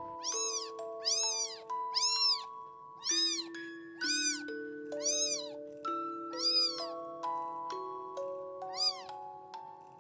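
A young kitten meowing repeatedly, about eight short high-pitched meows roughly a second apart, each rising then falling in pitch. Gentle background music with soft mallet-like notes plays underneath.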